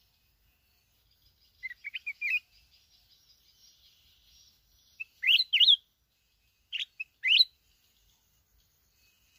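Red-whiskered bulbuls singing: three short bursts of quick, rising and falling whistled notes, about two, five and seven seconds in, with faint twittering between them.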